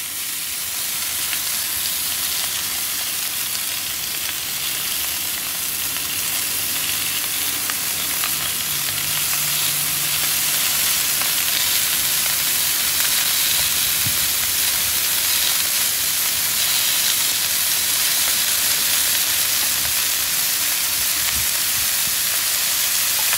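Shaved ribeye sizzling on a hot, oiled flat-top griddle as handfuls of strips are laid down one after another. It is a steady hiss that grows slowly louder as more meat goes on.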